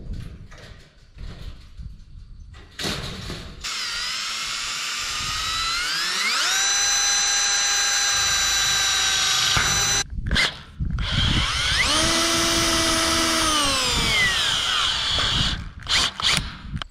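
Power drill run in two long bursts: each time the motor whine climbs to a steady pitch and holds for a few seconds. The first stops abruptly and the second winds down. It is drilling screw holes through sheet metal and a steel swing-set pole, with knocks and clatter from handling before and after.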